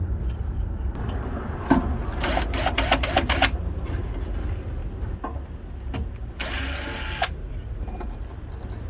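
Power drill run in a few short bursts about two to three and a half seconds in, then one longer run of about a second near the end, with scattered clicks and knocks of tool work over a steady low rumble.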